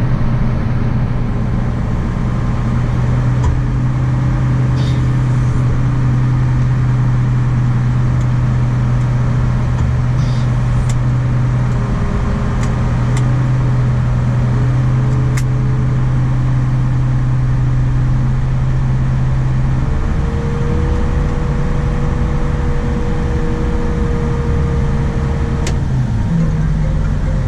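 A vehicle engine running steadily with a constant hum. About two-thirds of the way through, the note changes and a steady higher whine comes in for several seconds.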